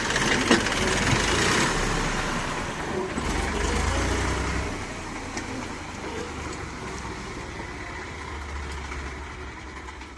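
Massey Ferguson tractor's diesel engine running with a steady low rumble, growing quieter over the second half.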